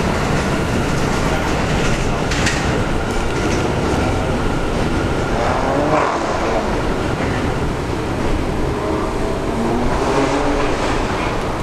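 Subway train moving through the rail yard: a steady rumble of wheels on rail.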